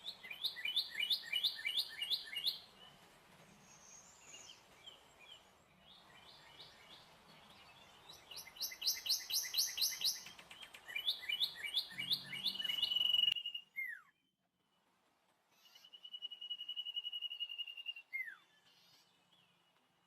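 Songbird singing: fast runs of high, repeated chirps, then a long, steady whistled note that ends in a quick downward slur. The sound cuts off suddenly just past the middle, then the long note and slur return near the end.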